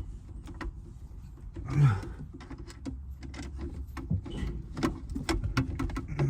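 Irregular clicks and light knocks of hands and tools working on heater hoses and fittings, over a low hum. A brief murmur of a voice comes about two seconds in.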